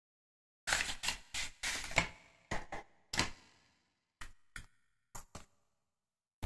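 Stiff pre-cut 3D puzzle sheets and their box being handled and laid down: a quick run of rustles and taps for about three seconds, then a few sparser clicks.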